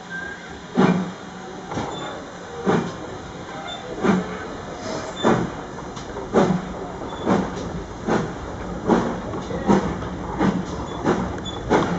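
Steam locomotive chuffing as it pulls the train away from a halt, heard from a carriage behind it. The exhaust beats come in a steady rhythm that gradually quickens as the train gathers speed.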